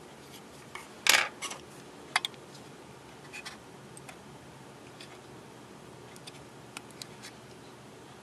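Metal pick tool prying and scraping at a desoldered chip on a circuit board: a short scratchy scrape about a second in, a sharp click about a second later, then a few faint ticks.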